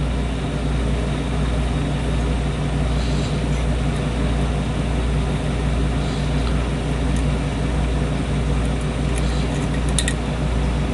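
A steady low mechanical hum over a constant hiss, with a few faint light metallic clicks toward the end as picks work the pins of a lock.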